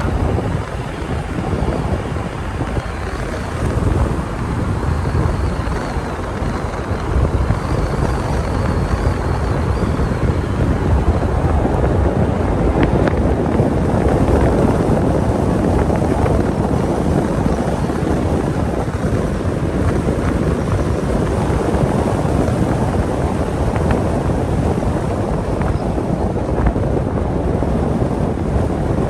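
Steady road and wind noise from a pickup truck driving, getting a little louder about twelve seconds in.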